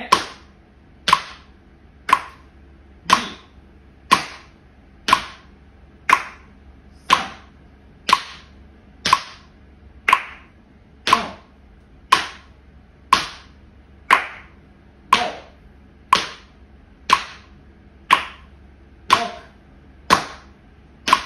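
Tap shoes on a wooden floor doing slow shuffle steps, the toe brushing forward and back and setting down, in time with a metronome at 60 beats a minute. The result is a steady rhythm of sharp clicks, loudest about once a second.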